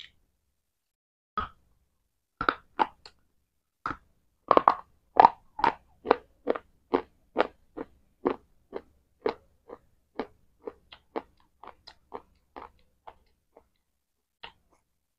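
Close-miked crunchy chewing: a person bites into something hard and brittle a few times, then chews it steadily at about two crunches a second, the crunches growing fewer and fainter near the end.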